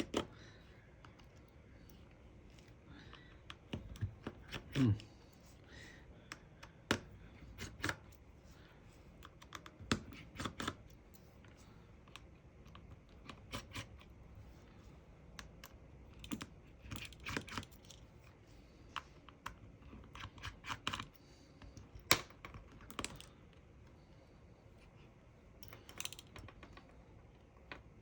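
Irregular small clicks and taps of a screwdriver working out the tiny screws holding the bottom plate of a Samsung Galaxy A03s phone.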